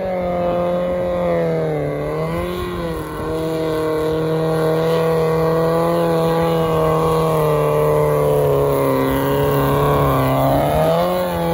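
An off-road car's engine running hard at steady high revs as it drives the muddy course. The note dips briefly about two seconds in and again near the end, then picks back up.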